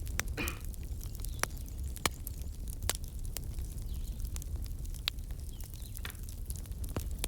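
Wood fire crackling: sharp, irregular pops over a steady low rumble, with two brief hisses, one near the start and one near the end.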